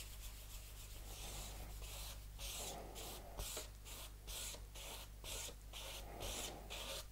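A cloth French-polishing rubber charged with shellac swishing back and forth across a wooden tabletop in faint, quick, even strokes, about two to three a second, as coats of polish are laid on.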